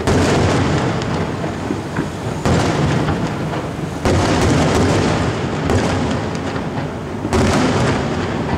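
Aerial fireworks bursting: four heavy booms, at the start, about two and a half seconds in, about four seconds in and near the end, each followed by a long fading rumble.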